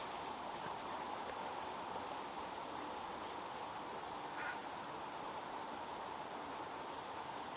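Steady rush of a stream, with a few faint, brief high-pitched bird calls over it.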